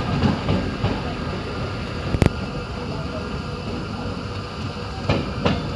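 Passenger train running, a steady rumble of the moving carriage with a sharp knock about two seconds in and a few clacks near the end.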